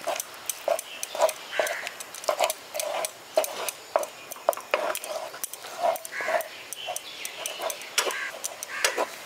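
Metal spatula clicking and scraping against a kadai in quick irregular strokes as chhana is mixed into sugar syrup. Short animal-like calls sound in the background throughout.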